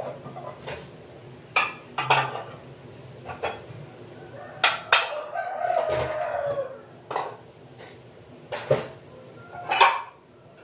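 Pots, bowls and utensils clinking and knocking at a kitchen counter, about ten irregular knocks. A rooster crows once, about five seconds in.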